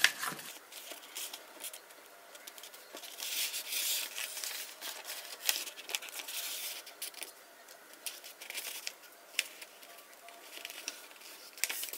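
Sheet of lined notebook paper being handled and folded by hand: irregular rustling and crinkling, with short sharp scratchy ticks as the folds are pressed.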